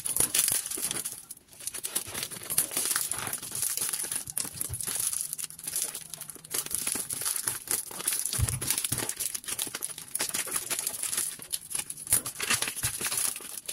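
Packaging being unwrapped by hand: wrapping crinkling and rustling, with tearing and many quick crackles. There are a couple of dull thumps about eight seconds in.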